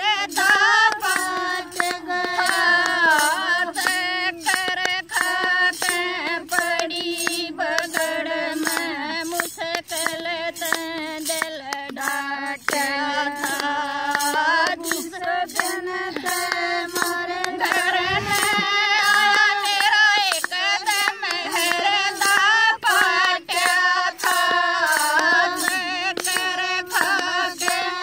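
Women's voices singing a Haryanvi jakdi folk song, kept in time by sharp hand claps at a steady beat of about two a second.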